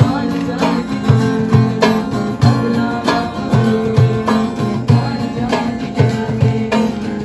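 Background music with plucked guitar over a steady beat, about two beats a second.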